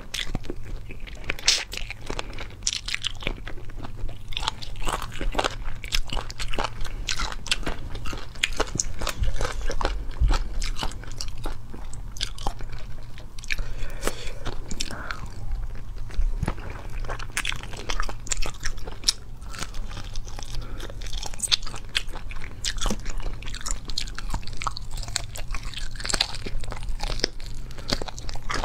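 A person biting and chewing chicken feet: a steady run of small, irregular crunches and clicks.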